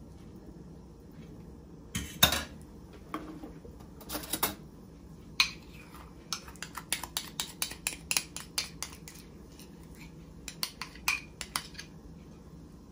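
Kitchen cookware and utensils clinking and knocking. A couple of louder knocks and rattles come in the first few seconds, then a run of quick light clinks, about four a second, around the middle, and a few more near the end.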